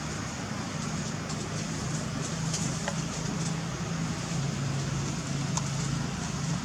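Steady low engine hum over a background of road noise, with a few faint ticks.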